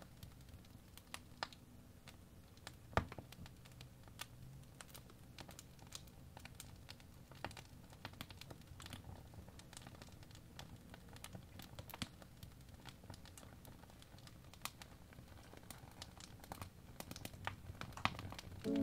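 Apple Pencil tip tapping and scraping on an iPad Pro's glass screen during sketch strokes: quiet, irregular light clicks and scratchy strokes over a faint low hum.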